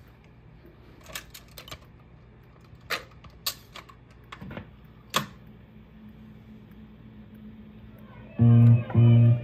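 Automatic record changer of a console stereo cycling through a stack of 45s: a string of mechanical clicks and clunks over a low hum as a record drops and the tone arm sets down. About eight seconds in, the record starts playing a guitar-and-bass pop-rock song.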